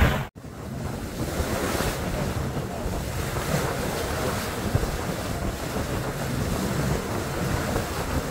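Steady wind buffeting the microphone over the wash of ocean waves around a boat at sea, starting after a brief dropout about a third of a second in.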